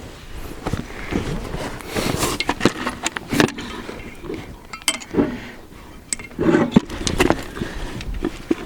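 Irregular clinks, knocks and scrapes of hand tools and metal parts being worked on a wood chipper during a belt change.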